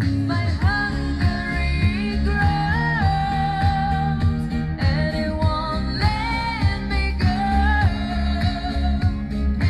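Female singer singing a slow pop ballad live into a microphone over a PA, holding long notes that step up and down, with sustained low bass accompaniment underneath.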